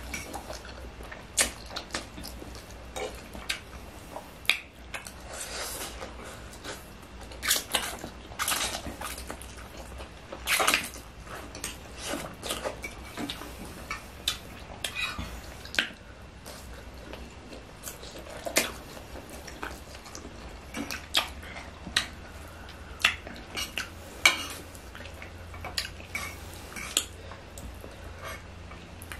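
Metal forks clicking and scraping irregularly as they twirl and lift instant noodles piled on a table, with noodles slurped in between.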